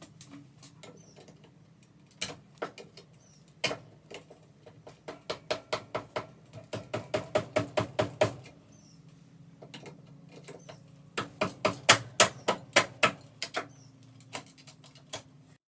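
Runs of sharp clicks and small knocks, at times about three a second, from hands working electrical cable and wire connections at a plastic ceiling junction box. A steady low hum sits beneath them.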